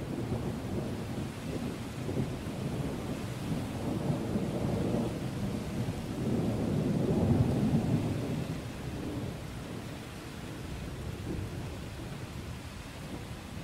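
Rolling thunder over steady rain: a deep rumble swells to its loudest about halfway through, then fades, while the rain patters on underneath.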